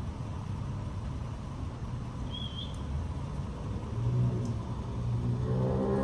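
Street traffic rumble, with a vehicle's engine growing louder near the end as it comes close. A brief high chirp sounds about halfway through.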